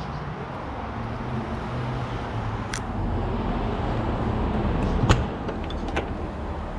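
Truck camper's rear entry door latch clicking open about five seconds in, followed by a smaller click as the door swings open, over a steady low rumble.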